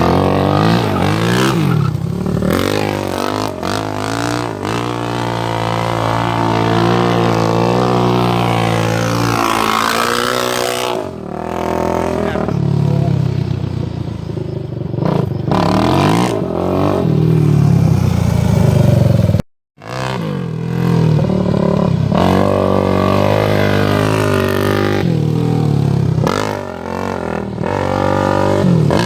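Suzuki LTR450 quad's 450cc single-cylinder four-stroke engine running and revving up and down repeatedly.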